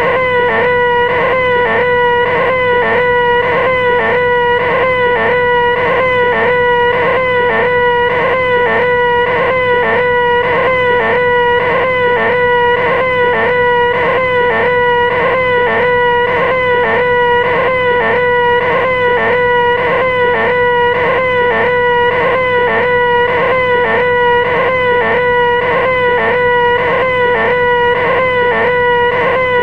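A loud, continuous nasal human screech held on one high pitch: the 'most annoying sound in the world', repeated on an even, unbroken loop.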